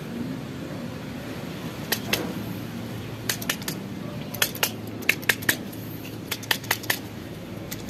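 A small plastic part just removed from a washing machine is being shaken and tapped to knock debris loose, giving irregular sharp clicks and rattles, mostly in quick clusters through the middle.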